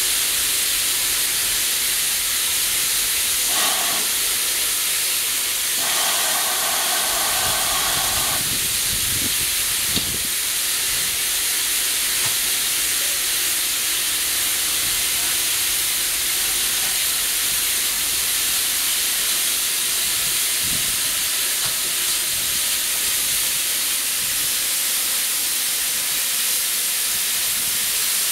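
Steam hissing steadily and loudly from GWR 2-8-0 tank locomotive 4277 "Hercules". Two brief higher tones cut through the hiss: a short one about three and a half seconds in, and a longer one from about six to eight seconds.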